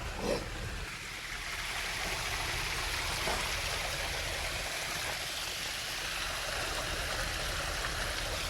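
Small waterfall spilling over rocks into a stream, a steady rush of water.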